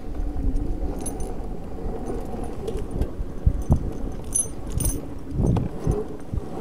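Zero FX electric enduro motorcycle ridden over a bumpy dirt track: a steady rumble from the tyres and suspension with a faint motor whine, several sharp knocks over bumps, and light metallic jingling.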